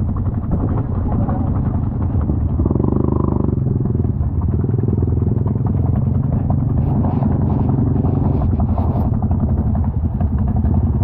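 Four-wheeler (ATV) engine running. It revs up briefly about three seconds in, then holds at steady revs.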